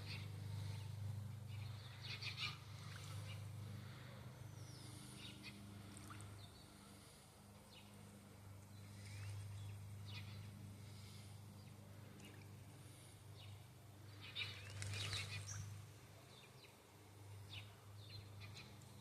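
Faint birdsong: small birds chirping in short scattered calls, busiest about two seconds in and again about fifteen seconds in, over a steady low hum.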